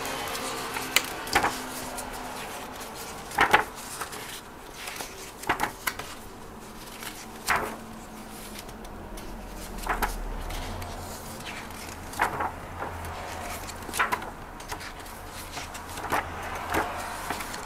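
Heavy black paper pages of a large hardcover photobook being turned by hand, a short flap or rustle roughly every two seconds, sometimes two in quick succession.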